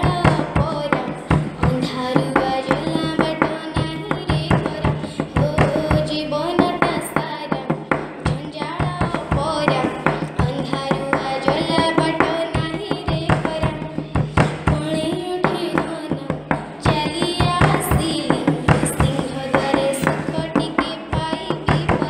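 A girl singing an Odia devotional bhajan to Jagannath, her melody sliding between notes, with a hand drum beating along in quick strokes.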